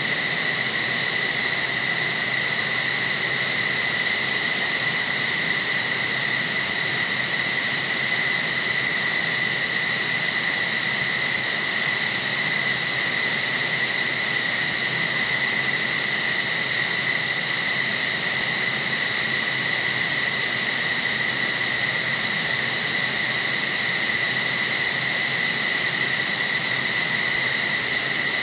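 F-15SG fighter jet's turbines running steadily: a constant high whine over a broad, even rush of air.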